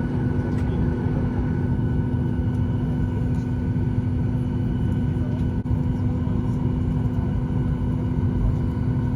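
Steady low hum of an airliner cabin's air conditioning while the plane is parked with its engines not yet started, with one constant droning tone under it.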